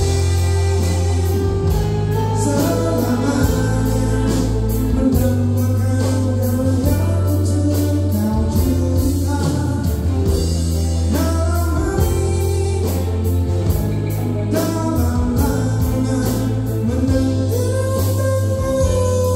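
Live band performance: a male lead singer sings a song over electric bass, keyboards and drums, with steadily repeated cymbal strokes.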